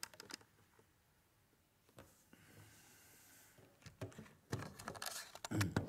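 Scattered clicks and knocks of a person moving and handling things, with a brief faint hiss in the middle; the rustling and knocking grow denser and louder over the last two seconds.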